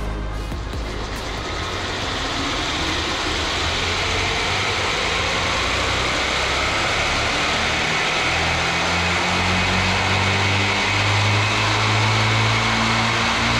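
A combat robot's vertical disc spinner weapon running at speed: a steady mechanical whir that grows louder over the first few seconds and then holds.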